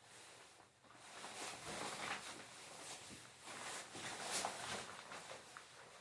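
Faint, irregular rustling and shuffling of a waterproof rain suit as its wearer moves about.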